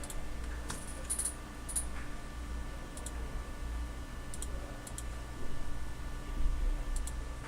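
A few scattered, irregular clicks at a computer, over a steady low hum.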